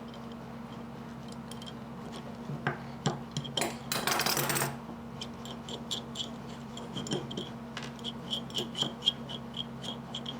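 Small metal parts of a Stanley No. 4 hand plane being handled during reassembly: light clicks and clinks, a short scraping rattle about four seconds in, and a run of quick light ticks near the end.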